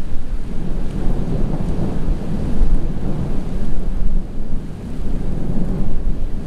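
Rolling thunder from a supercell thunderstorm, a long low rumble that swells about a second and a half in and again near the end, with wind buffeting the microphone underneath.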